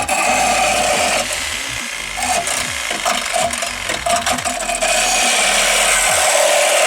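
Power saw with a blade cutting through a car's sheet-metal body panel, widening a hole, running hard with a steady high whine and grating rasp. It starts abruptly and eases a little in the middle before picking back up.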